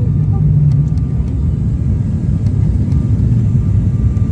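Steady low drone of a high-wing propeller airliner's engines and slipstream, heard inside the passenger cabin on final approach to landing.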